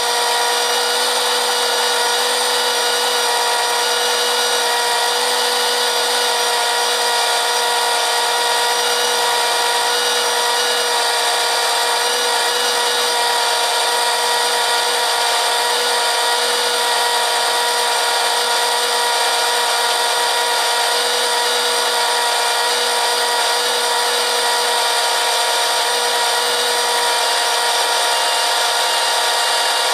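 John Deere 140 garden tractor engine running at a steady speed, warming up before its oil is drained. It holds an even, unchanging whine with a hiss over it.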